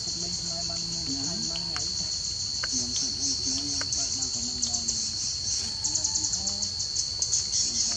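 Chorus of insects: a steady high drone with a fast-pulsing buzz above it that swells several times.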